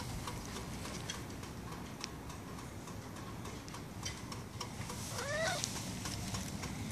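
A cat meows once, a short call rising and falling in pitch, about five seconds in, over faint scuffing and clicking.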